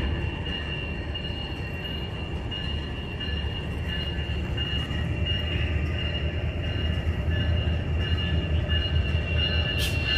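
Diesel-electric freight locomotives running with a steady low engine rumble and a steady high-pitched whine above it, growing a little louder near the end.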